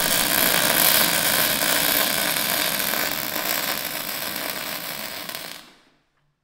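Electric arc welding: the welding arc gives a steady crackling sizzle that fades away near the end.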